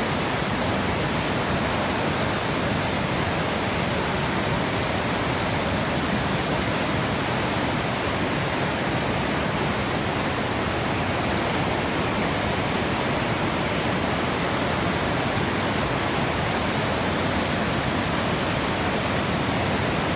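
Steady rushing water, an even unbroken hiss and rumble with no changes.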